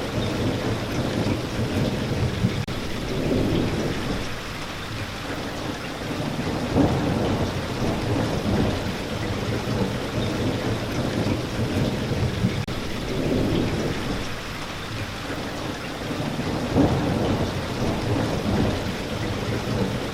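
Steady rain falling, with low rolling thunder rumbling underneath that swells about a third of the way in and again near the end.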